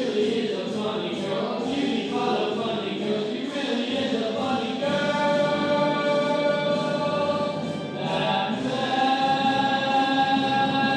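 A choir singing, moving through shorter notes at first and then holding long sustained chords from about halfway through.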